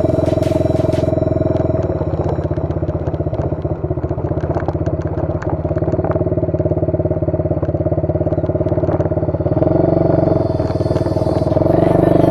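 125cc ATV engine running while riding over rough ground, with light rattling in the middle. The engine picks up revs near the end.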